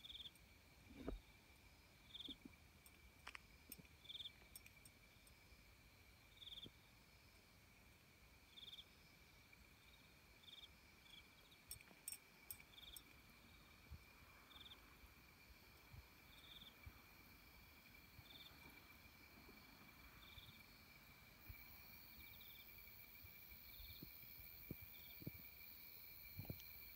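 Faint insects calling in a quiet evening outdoors: short high chirps about once a second over a steady thin high whine, with a few soft knocks.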